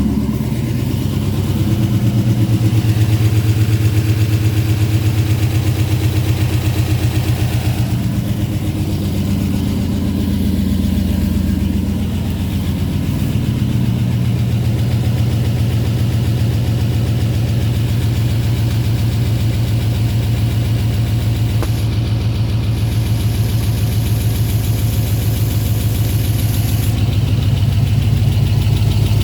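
Chevrolet 4.8 L V8 with a freshly installed stage 2 low-lift truck cam and headers, running on its first start-up, its speed rising and falling a little. A rocker arm left untorqueed on this start-up gave it lifter noise.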